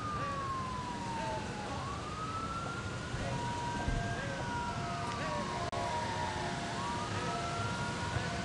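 Emergency-vehicle siren in wail mode, its pitch rising slowly and falling slowly again in a cycle of about four to five seconds, over the low rumble of vehicles driving past.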